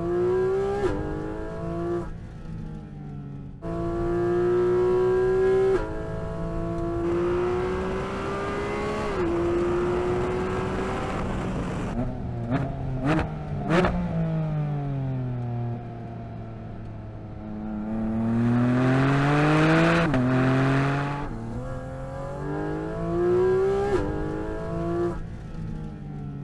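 Porsche 718 Cayman GT4 RS's naturally aspirated flat-six at full throttle on track, its pitch climbing high through the revs and dropping sharply at each upshift. Around the middle there is a burst of sharp cracks while it slows and downshifts, the revs falling, before it pulls hard through the gears again.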